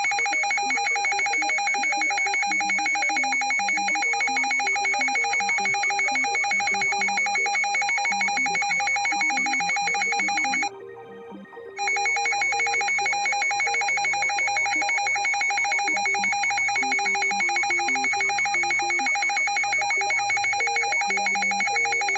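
Electronic emergency alert alarm: a loud, rapidly trilling ring like a telephone bell, with a middle and a high tone sounding together. It plays in two long stretches broken by a pause of about a second near the middle. Quieter low notes shift in pitch underneath.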